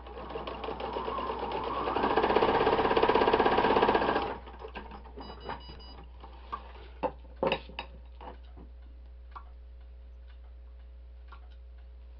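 Electric home sewing machine stitching, speeding up over the first couple of seconds, running fast, then stopping about four seconds in. Afterwards come a few scattered light clicks.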